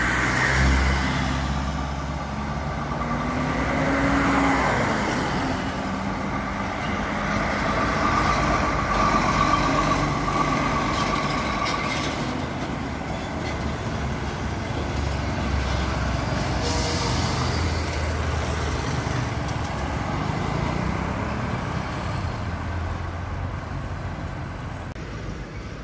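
Diesel trucks hauling car-transporter trailers driving past close by, engine drone and tyre noise swelling and fading as each goes by, with the engine pitch shifting as they change speed.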